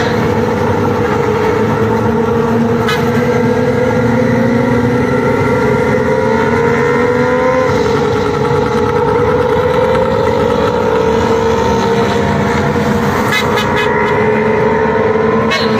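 Suzuki two-stroke pickup engines running hard in a road race, a loud continuous buzzing engine note. The pitch creeps slowly upward, dips slightly about halfway through, then holds steady.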